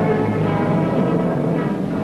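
Background music score with held, sustained chords.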